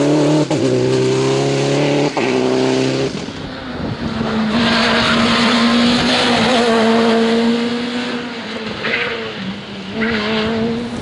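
Rally car engines at full throttle on a tarmac stage. A Citroën DS3 pulls away, its engine note climbing and breaking twice in quick upshifts. After a sudden change a Peugeot 207 S2000 runs hard past and away, its note dropping and then climbing again near the end.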